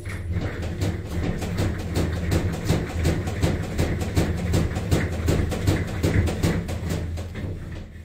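Panasonic NA-F65G7 top-load washing machine running with a steady low hum and a rapid, uneven knocking several times a second. This is the abnormal noise the machine is being checked for.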